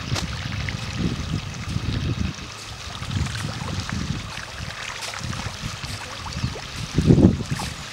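Small waves lapping and fizzing on a gravel beach, with wind buffeting the microphone in low rumbling gusts, the strongest about seven seconds in.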